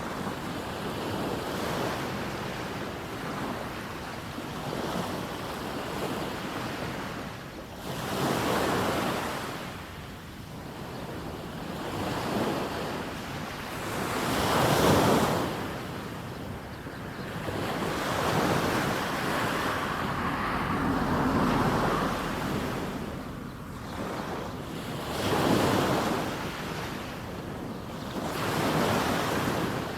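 Small sea waves breaking and washing up a sandy beach. The surges come every few seconds over a steady hiss of water, and the loudest is about halfway through.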